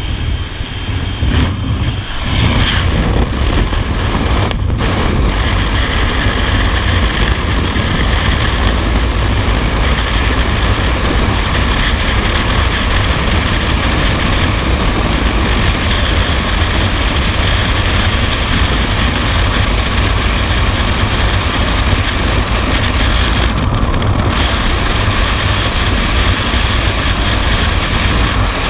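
Aircraft engine and slipstream noise at the open door of a skydiving plane, then, from about two seconds in, loud steady wind rush over the camera in freefall.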